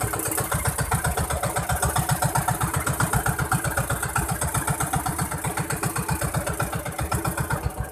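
Small outrigger fishing boat's engine running steadily with an even, fast chugging beat.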